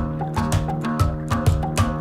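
Background music with a steady drum beat over held chords.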